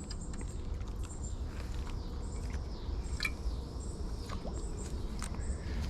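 Outdoor riverside ambience: a steady low rumble with repeated short, high chirps and a few faint clicks.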